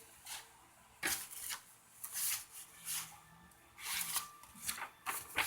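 Stiff paper being handled: a run of short rustles and flicks, starting about a second in and repeating every half second to second, as of tarot or oracle cards or guidebook pages being moved.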